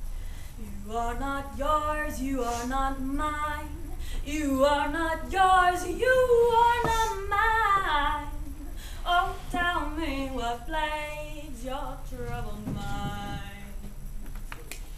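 A woman singing solo and unaccompanied, in long held notes that climb to her highest and loudest about halfway through.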